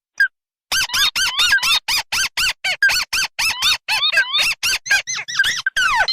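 Recorded lure calls of tikusan crakes, ruddy-breasted crake (tikusan merah) and tikusan putih in combination. After a brief break near the start, short arched call notes repeat fast and evenly, about six a second, with a quick falling call near the end.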